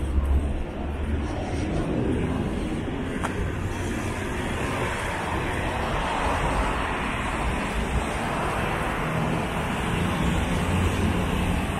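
Road traffic: cars driving on the street alongside, a steady wash of engine and tyre noise that swells in the middle as vehicles pass.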